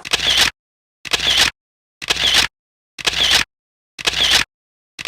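A camera shutter sound effect played six times, about once a second, each identical half-second click-and-whir cut off by dead silence.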